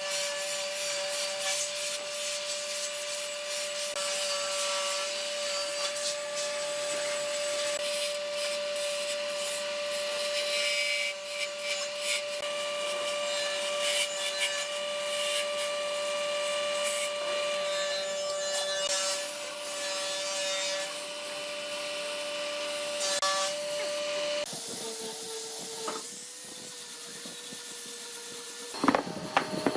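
Wood being sanded, a rough rubbing hiss over a steady motor hum. About 24 seconds in the rubbing stops and the hum drops lower and quieter, and a few sharp knocks come at the very end.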